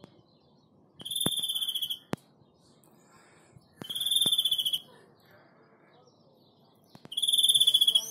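European greenfinch singing: three rapid buzzing trills, each about a second long, with a sharp click just after the first.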